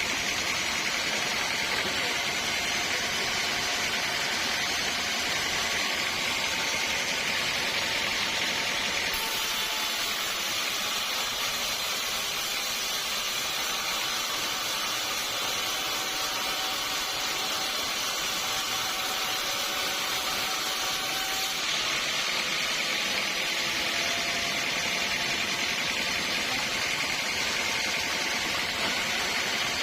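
Sawmill saw running steadily through a large teak log, a continuous hissing machine noise with a faint steady whine underneath.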